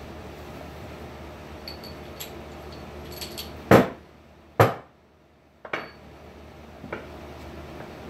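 Metal tools and pump parts knocking and clinking on a workbench: a few light ticks, then two sharp knocks about a second apart near the middle, followed by two lighter ones.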